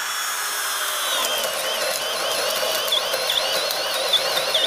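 Hercules brushless hammer drill in low gear boring a 2 9/16-inch self-feed bit into wood: a steady motor whine that sags slightly about a second in, then dips again and again in the second half as the bit bites in under load.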